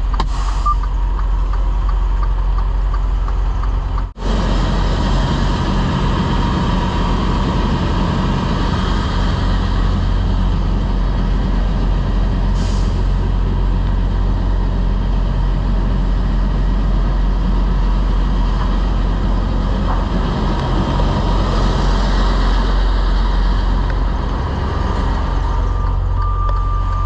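Semi-truck's diesel engine idling steadily, a low hum under a steady hiss. The sound drops out briefly about four seconds in.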